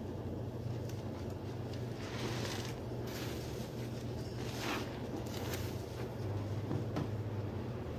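Soapy dish sponge being squeezed by hand: several wet squishes of suds and soapy water, each lasting about a second, over a steady low hum.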